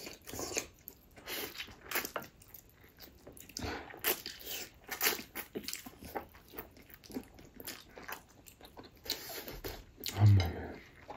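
Close-miked mukbang eating: a person biting and chewing food in irregular bites and chews, with a brief low voice sound about ten seconds in.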